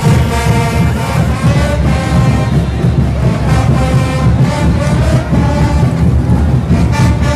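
Brass band playing a loud caporales tune, with held horn notes carrying the melody over a steady beat of bass drum and cymbals.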